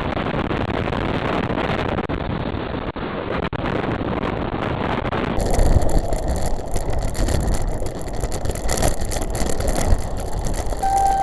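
Wind and road noise on a bicycle-mounted camera while riding. From about five seconds in, a heavier, gusty low rumble as a flatbed lorry passes very close alongside the bike. A short steady high tone sounds near the end.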